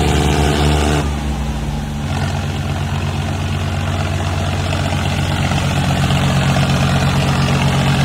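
Tractor diesel engines running at high revs under load in a tug-of-war pull, eased off about a second in. A diesel engine then runs steadily with a fast even beat, growing louder as the John Deere 5050D tractor drives along close by.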